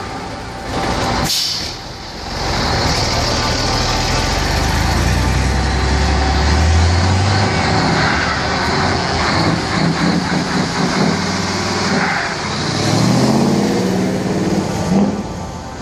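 Heavy diesel trucks, a Mercedes-Benz Actros and then a MAN, pulling away in a line: engines revving up as they accelerate, the pitch rising for a few seconds at a time, with a short air-brake hiss near the start.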